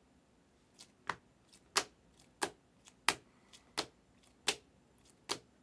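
Hard plastic toploader card holders clacking against each other as a stack of trading cards is flipped through one by one. About seven sharp clicks start about a second in, evenly spaced about two-thirds of a second apart, each often with a fainter tick just before it.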